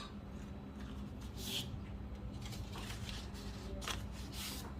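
Faint rustling and light handling noises, with a short hiss about a second and a half in and a run of soft scratchy rustles in the second half.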